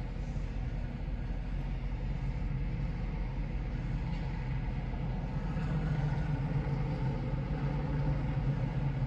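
Steady low engine rumble heard from inside a car, with a low hum that grows a little stronger about halfway through.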